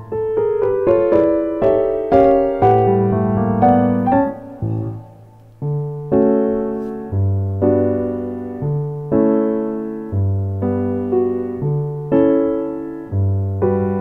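Background piano music: a quick run of notes, a short pause about five seconds in, then slow chords struck at an even pace.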